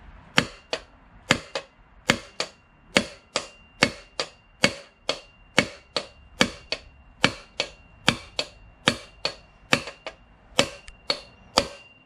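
A hammer striking a metal bearing driver about three times a second, driving a new front wheel bearing into the hub of a 2003 Honda VFR800 wheel. Each blow rings, and the note changes as the bearing seats fully at the bottom of its recess.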